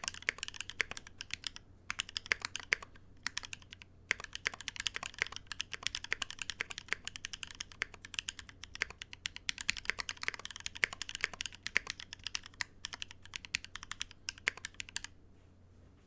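Typing on a Hive60 60% custom mechanical keyboard with a gasket-mounted brass plate and Holy Panda tactile switches lubed with 3204: rapid key clacks with a couple of short pauses early on, stopping near the end.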